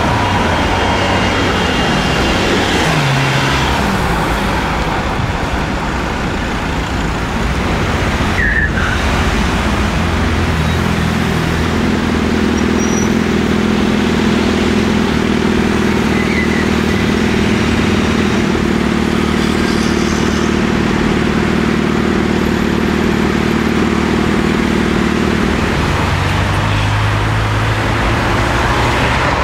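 Busy road traffic: cars passing at close range with engines running, and a steady low engine hum, as of a vehicle idling, from about ten seconds in until shortly before the end.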